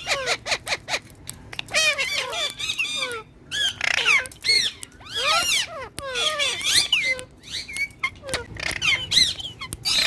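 Green ringneck parakeet chattering in quick bursts of high chirps and squawks, each call sweeping sharply up or down in pitch, with short pauses between the bursts.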